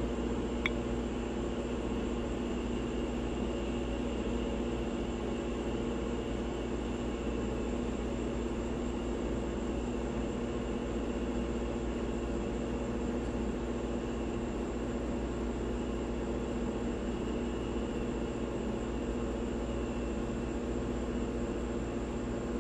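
Steady machine hum with several constant low tones and a faint high whine over it, unchanging throughout; a single short tick about half a second in.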